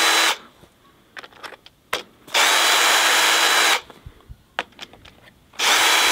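Cordless drill run free in short bursts, its motor whining at a steady pitch: a spell that stops just after the start, another of about a second and a half in the middle, and a third that starts near the end. Small clicks and knocks of handling fill the gaps between.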